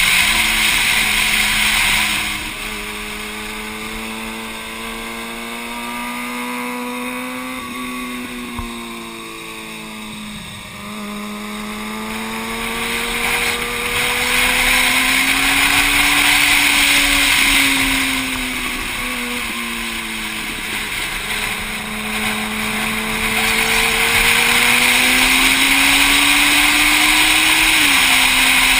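Motorcycle engine running at track speed, its pitch rising and falling slowly with the throttle, with a sudden small drop in pitch near the end. Wind rush over the bike-mounted microphone swells and fades with speed.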